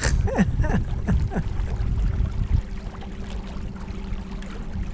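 Electric trolling motors running with a steady hum over low wind and water rumble. A few short falling sounds come in the first second and a half.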